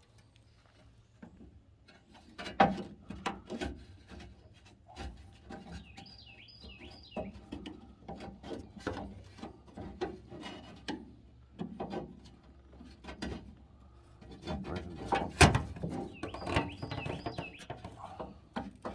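Scattered clicks, knocks and clanks of hand tools and metal parts as an old hose clamp is worked loose, with one loud knock about fifteen seconds in. Short high chirps come around six seconds in and again near sixteen seconds, over a low steady hum.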